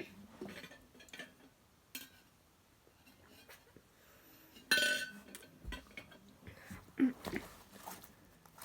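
Hard small objects being handled: scattered clicks and clinks, with one louder clatter that rings briefly about five seconds in.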